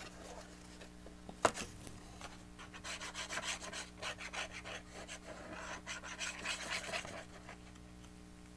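Fine-tipped glue bottle and fingers scraping and rubbing on cardstock in a quick run of short strokes as glue is laid along a paper box flap, with a single sharp tap about one and a half seconds in.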